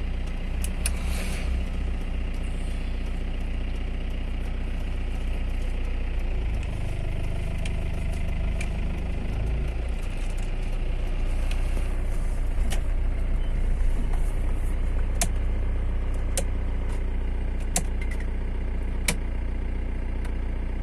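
Car engine and tyre noise heard from inside the moving car, a steady low rumble that swells a little about halfway through. Occasional sharp clicks come through in the second half.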